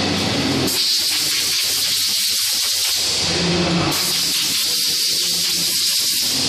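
Loud, steady spraying hiss in two long spells, each about two to three seconds, with a steady low machine hum filling the gap of about a second between them.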